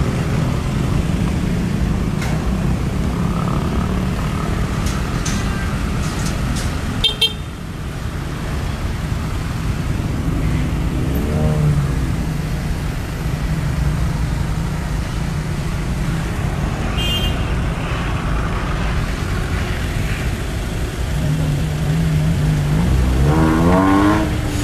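Road traffic heard from a moving motorcycle taxi: a steady low engine and road rumble, with short horn toots about seven seconds in and again around seventeen seconds. Near the end an engine note rises as a vehicle speeds up.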